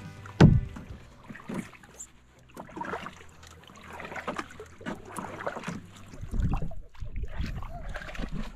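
Kayak paddle strokes swishing through lake water, an uneven run of splashy strokes, with one sharp knock about half a second in.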